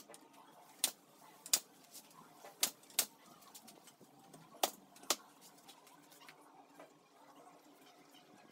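Pneumatic brad nailer running off an air compressor, driving 35 mm brads into pine pallet slats: about seven sharp shots, irregularly spaced, over roughly five seconds.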